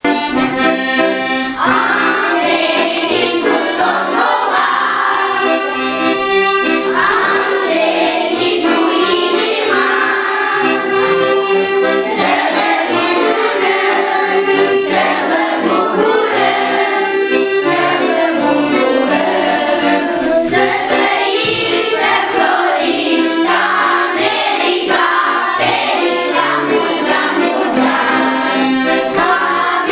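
A group of children singing together in chorus, accompanied by an accordion.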